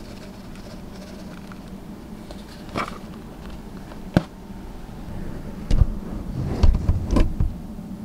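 A plastic cup being tapped and knocked to shake calcium-dusted fruit flies into a frog vivarium: a couple of sharp taps, then a cluster of heavier knocks from about two-thirds of the way in. A steady low hum runs underneath.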